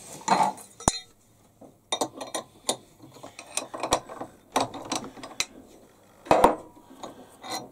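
Irregular metallic clicks and clinks of tools being handled as a countersink's shank is tried in a milling machine collet.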